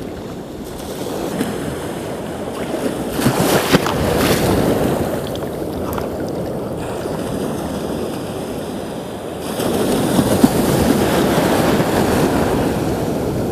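Small waves washing in the shallows, swelling louder twice, with wind on the microphone.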